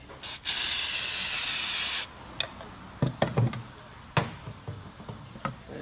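Aerosol cleaner sprayed in one long hiss of about a second and a half, cleaning out a fuel filter cartridge housing. Several light knocks and clicks of handling follow.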